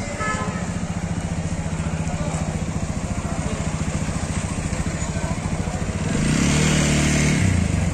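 Street traffic with an engine running steadily close by. About six seconds in, a motorcycle passes close. It is louder for about a second and a half and drops in pitch as it goes by.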